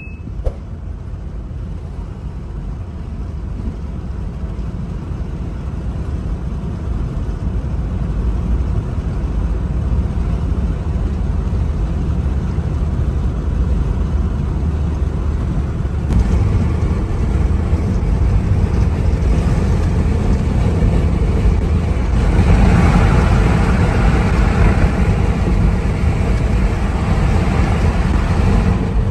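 Car driving at road speed, heard inside the cabin: a steady low rumble of engine and tyres on the road that slowly grows louder. A brighter rushing hiss rises over it for a few seconds near the end.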